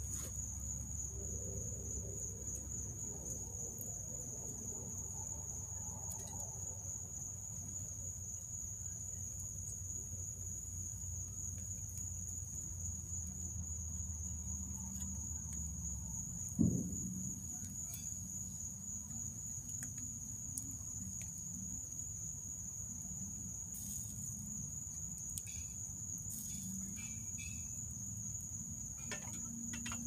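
A steady, high-pitched chorus of crickets trilling without a break at night, over a low background rumble. A single knock stands out about two-thirds of the way through, with a few faint clicks near the end.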